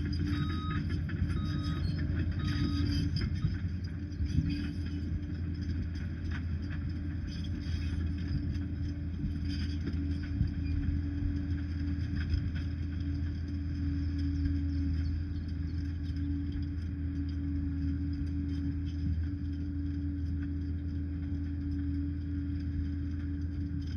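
Liebherr PR 746 crawler dozer's diesel engine running steadily under work, a continuous low drone with a steady whine above it. A reversing alarm beeps about once a second for the first three seconds, then stops.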